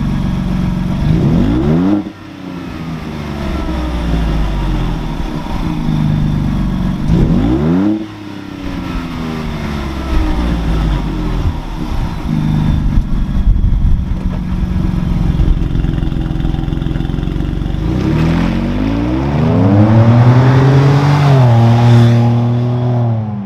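2021 Ford Bronco 2.7-liter twin-turbo V6 running through a 3-inch cat-back exhaust with a Helmholtz chamber, revved in two short blips that rise and drop back, then a longer rev held for a couple of seconds before falling near the end.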